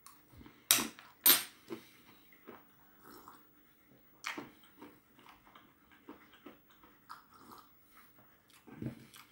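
Mouth crunching and chewing salted, cheese-flavoured peanuts, with two loud crunches about a second in, then softer, irregular crunching.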